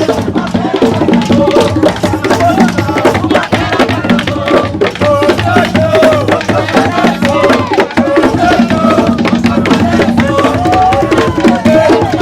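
Tambor de crioula drumming: hand-played drums beating a fast, dense rhythm, with voices gliding over it.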